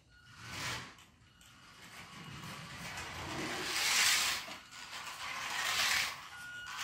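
Small brushed electric motor of an RC-converted toy car whirring in surges as the car drives on a wooden floor on hard plastic wheels. It is loudest about four seconds in and again about six seconds in.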